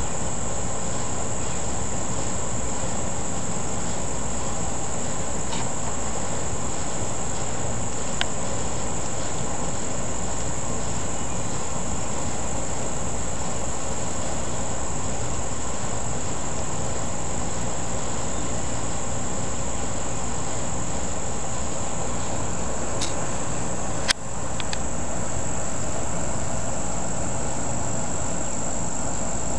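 Insects trilling steadily, one unbroken high-pitched tone over a rushing background. A single sharp click comes near the end, with the level dipping for a moment after it.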